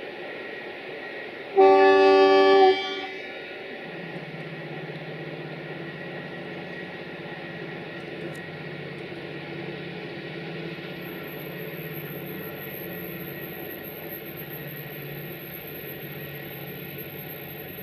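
CFR 060-EA (LE 5100 kW) electric locomotive sounding one loud horn blast of about a second, a chord of several tones, about a second and a half in. Afterwards the steady hum and rail noise of the locomotive and its coaches running past.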